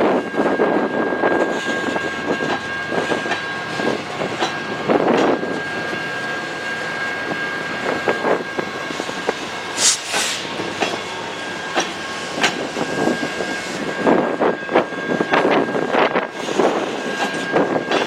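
A train rolling past, with wheels rumbling and clicking over the rails and a thin, steady high-pitched squeal running under it; a brief sharp hiss comes about ten seconds in.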